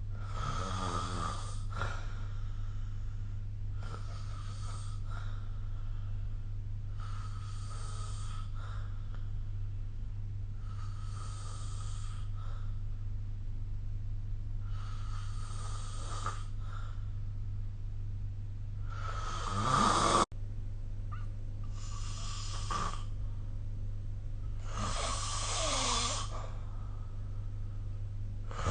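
A sleeping person snoring, one rasping snore about every three to four seconds, some clearly louder than others, over a steady low hum.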